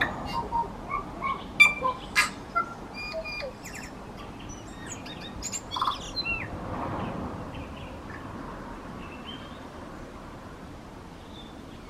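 Tui singing: a quick jumble of short whistled notes, clicks and pops, with a few brief pitch slides, over the first six seconds or so, then only a few faint notes.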